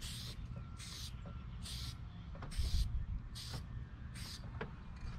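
Aerosol spray-paint can hissing in six short bursts, about one every 0.8 s, as light coats of blue paint are sprayed onto a car's interior trim panel. A steady low rumble runs underneath.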